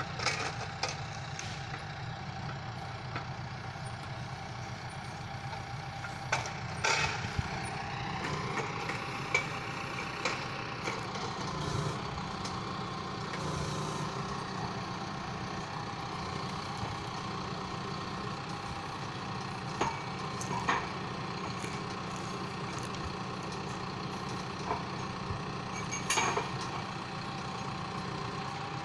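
John Deere 6115M tractor engine running steadily while driving a timber crane loading logs onto its trailer. A few sharp knocks sound as the logs are handled, the loudest about 7 seconds in and near the end.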